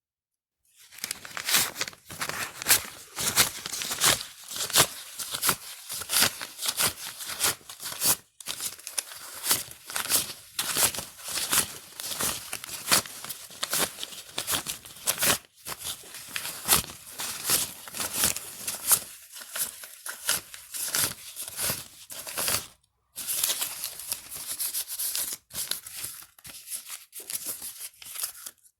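Paper banknotes being counted by flicking through a stack, a crisp papery snap for each bill, a few a second, with a few short breaks.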